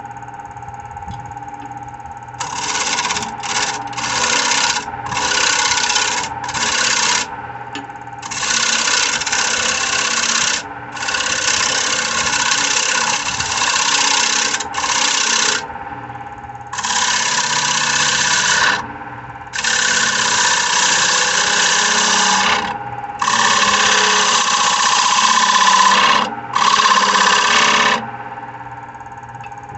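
A gouge cutting the inside of a spinning spalted birch bowl on a wood lathe, in a series of loud, rasping cuts, each from half a second to a few seconds long. Between the cuts the lathe motor hums steadily.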